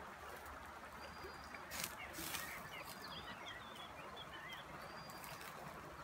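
Small birds chirping repeatedly over a steady rush of river water, with a couple of short clicks about two seconds in.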